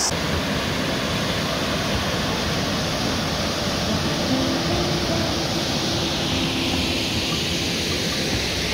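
Waterfall pouring over rock steps into a pool: a loud, steady rush of falling water.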